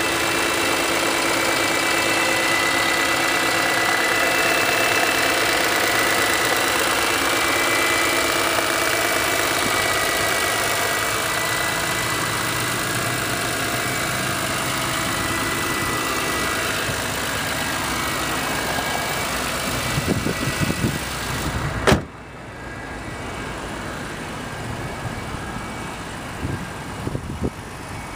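BMW S54 inline-six idling steadily with the hood open, several steady tones over the idle. About 20 seconds in come a few knocks, then about 22 seconds in the hood slams shut with one sharp bang, and the idle is quieter and muffled after it.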